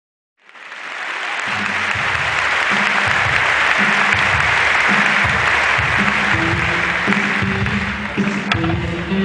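Audience applauding, with music coming in underneath about a second and a half in: a pulsing bass line and a few held higher notes.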